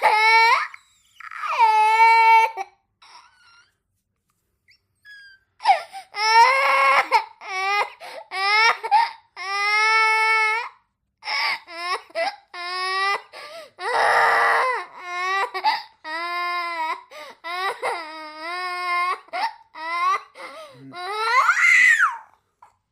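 A young child crying: repeated high-pitched wails and sobs in short bouts, with a pause of about three seconds near the start.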